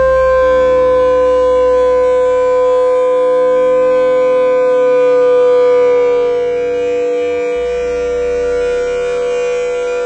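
A long, siren-like 'hüüü' wail: one held tone with a few overtones, sinking very slightly in pitch and easing a little in loudness about six seconds in.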